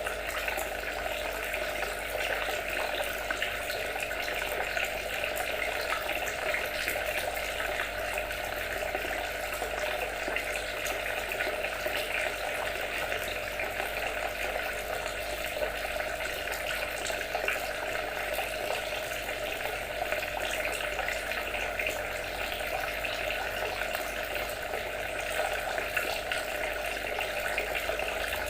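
Water trickling and splashing steadily, an even, unbroken babble with no change throughout.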